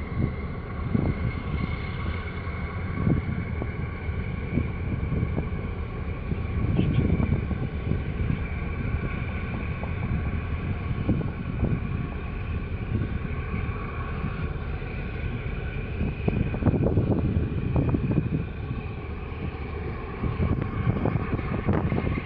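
Steady low drone of a passing container ship and its escort tug's engines, with a couple of constant higher tones over the rumble. Uneven gusts of wind buffet the microphone.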